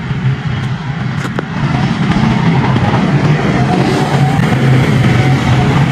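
A small vehicle engine running steadily, getting louder about two seconds in.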